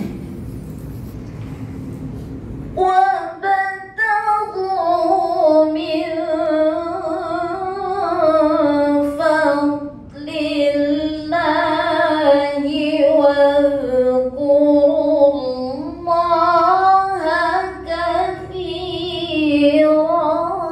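A woman's melodic Quran recitation: long, ornamented phrases held with a sliding, wavering pitch. It starts about three seconds in, after a low rumble.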